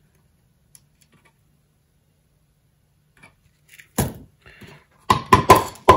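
A faint low hum while solder is quietly run onto the connector pins, then a single knock about four seconds in and a quick run of knocks and clatters near the end as the soldering iron and solder reel are handled and set down on a wooden workbench.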